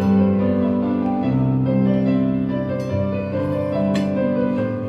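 Background piano music with slow, held notes and chords changing about once a second.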